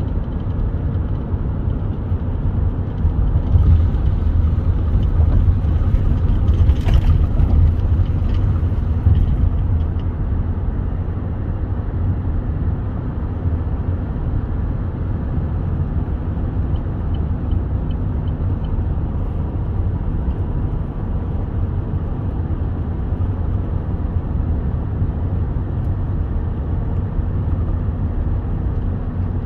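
Steady road and engine rumble heard from inside a moving vehicle's cabin, with a brief click about seven seconds in.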